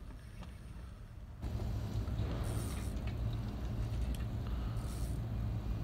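Wind buffeting the microphone: a low, steady rumble that gets louder about a second and a half in, with two short hisses.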